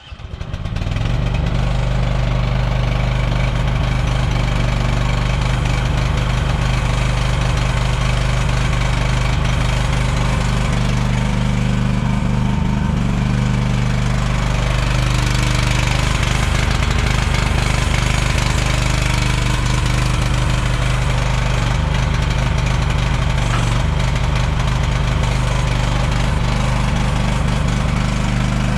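Lanty LAT-13 mini excavator's small engine running steadily at a constant speed, with a brief change in tone about halfway through.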